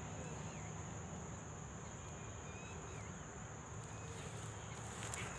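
Insects chirring as one steady, high-pitched drone over a low background rumble, with a few faint clicks near the end.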